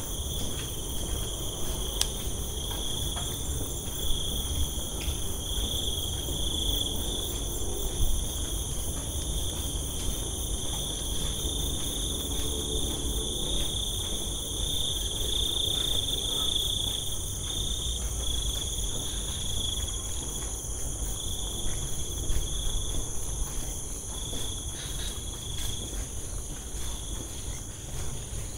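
Steady insect chorus: a continuous high-pitched chirring in several layers, over a low rumble.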